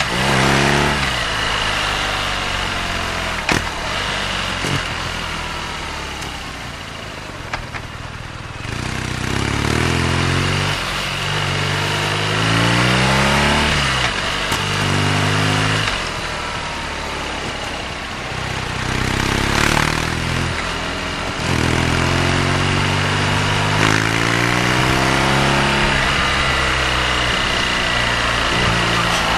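BMW R nineT's boxer twin engine pulling away and accelerating through the gears, the pitch climbing and then dropping at each upshift. It eases off to a quieter, lower note about a quarter of the way in, then pulls through the gears again.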